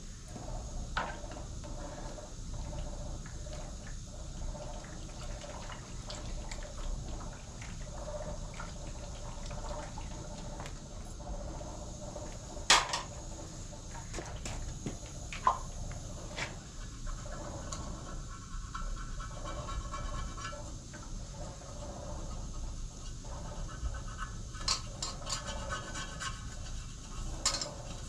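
Steady water-like rushing, with scattered knocks and clinks of metal pots and bowls being handled; one louder knock about thirteen seconds in and a run of clinks near the end.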